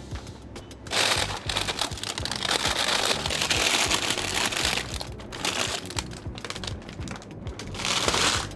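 Plastic ice cream wrappers crinkling and rustling as a hand rummages through packaged ice creams in a chest freezer. The crinkling starts about a second in and runs until shortly before the end, over music.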